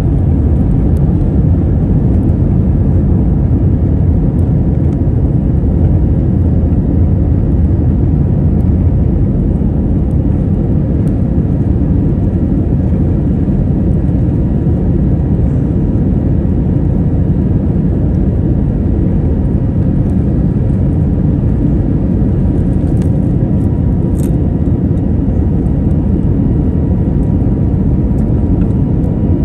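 Cabin noise of an Airbus A321neo climbing out just after takeoff. Its Pratt & Whitney PW1100G geared turbofans run at climb thrust, and airflow rushes past the fuselage, giving a loud, steady, deep rumble heard inside the cabin by the window. A faint steady whine sits above the rumble.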